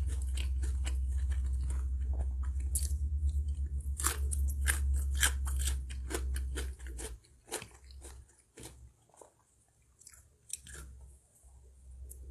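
Close-miked mouth sounds of someone chewing a mouthful of stir-fried Maggi noodles: many short wet smacks and crunchy clicks. A low steady hum underlies the first half and stops about halfway.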